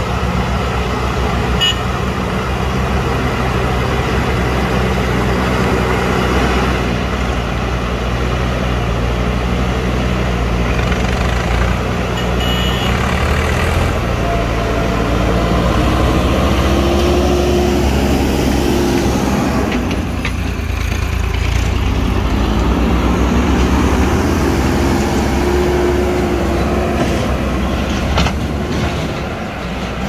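JCB backhoe loader's diesel engine running steadily under load as its front bucket pushes soil, with a higher whine coming in twice for a couple of seconds.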